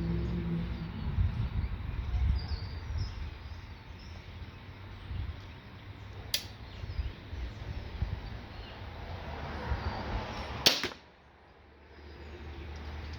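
Wicked Ridge Defender compound crossbow fired once, a loud sharp crack of the string releasing about two-thirds of the way in. It is preceded a few seconds earlier by a single lighter click.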